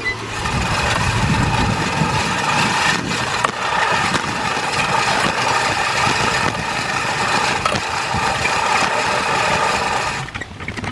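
Yardworks 18-inch manual reel mower pushed briskly through tall grass: the spinning reel gives a steady whirring clatter as its blades cut, stopping near the end.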